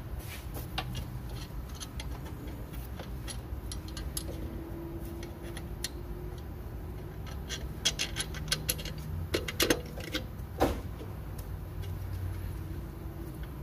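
Irregular metallic clicks and taps of alternator mounting bolts being handled and started into their holes by hand, with a cluster of louder clicks about two-thirds of the way through. A steady low hum runs underneath.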